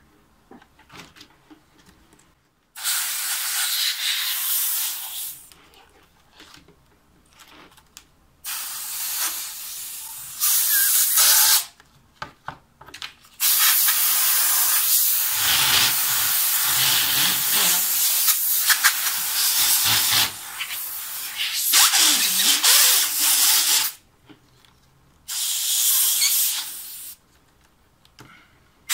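Compressed air hissing from a nozzle in six bursts, the longest lasting about seven seconds, blown across a keyboard's exposed membrane sheets to drive out trapped water that was making keys register as stuck.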